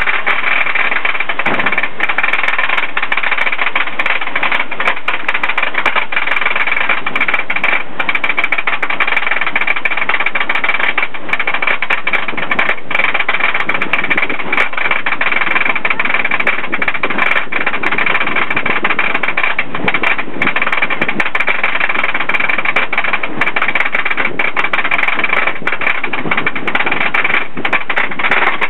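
Wooden roller coaster train climbing its chain lift hill: a steady mechanical clatter of the lift chain, with rapid, continuous clicking as the anti-rollback dogs ratchet over their track.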